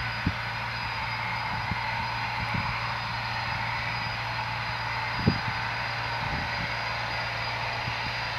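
Eurofighter Typhoon's twin EJ200 jet engines running at low taxi power: a steady rush and whine with a low hum underneath. A few brief low thumps are mixed in, the loudest a little past five seconds in.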